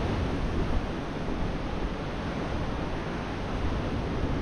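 Ocean surf echoing through a sea cave: a steady, deep rush of noise with no distinct events.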